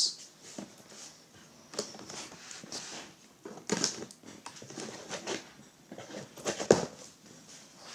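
Kitchen knife slitting the packing tape on a cardboard box and the flaps being pulled open: scattered scrapes, rustles and knocks, the loudest about four and seven seconds in.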